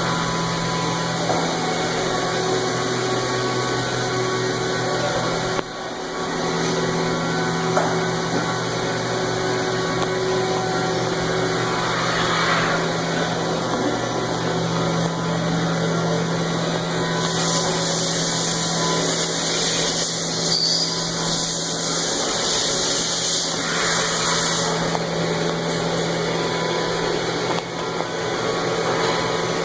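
Haas EC-400 horizontal machining center running with a steady mechanical hum, with a hissing rush that starts about halfway through and stops some seconds later.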